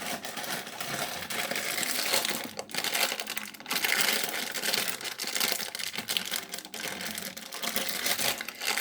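Packaging crinkling and rustling as it is handled, in irregular bursts with a couple of brief pauses.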